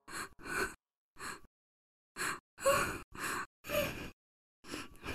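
A woman's painful breathing: short, ragged gasps and shaky breaths in uneven bursts, some with a slight voiced catch.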